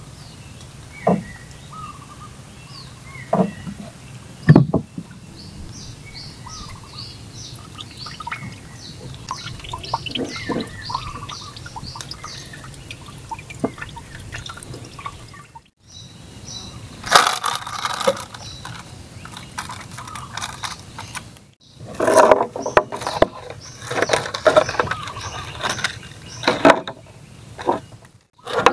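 Small birds chirping over a quiet background, with a few knocks against the wooden boat. Later, a plastic bag of shrimp crinkles and rustles in loud stretches as it is handled.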